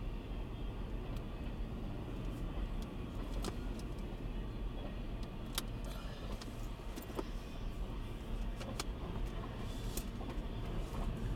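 CSX double-stack intermodal freight train passing: a steady rumble of steel wheels on the rails, with scattered sharp clicks and clanks from the cars at irregular moments.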